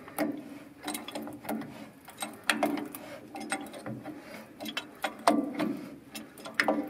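Pipe wrench clicking and ratcheting on the threaded nose of an MTV spring park brake chamber as the chamber is unscrewed from the brake housing by hand in short strokes, after being broken loose with a hammer. Irregular sharp metal clicks come every fraction of a second.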